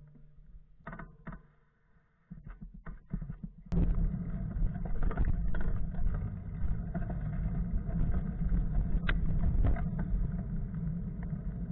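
Steady wind rumble and road noise on the microphone of a bicycle-mounted camera while riding, starting abruptly about a third of the way in; before it, a few scattered knocks.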